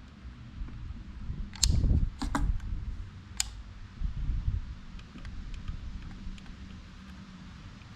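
Handling noise from the soldering work on the extension cord wires: a few sharp clicks and taps, mostly between about one and a half and three and a half seconds in, with fainter ticks after, over a low rumble.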